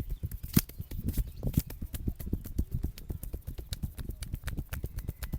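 Rapid rhythmic slapping and tapping of a masseur's hands on a man's head and neck, about eight strokes a second, with one sharper crack about half a second in.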